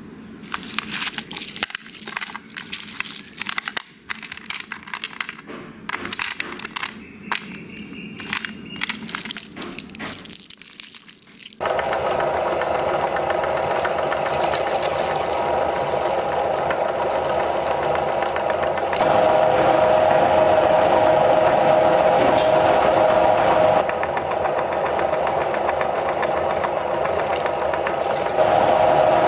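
Crinkling of candy wrappers and irregular clicks of hard sweets being handled. About twelve seconds in, an electric meat grinder switches on abruptly and runs steadily, its auger grinding the candies. A louder steady whine joins for several seconds midway and again near the end.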